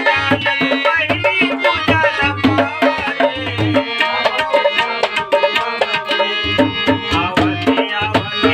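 Instrumental break in a Ganesh devotional folk song: tabla playing a steady rhythm with deep bass strokes under a busy melody line.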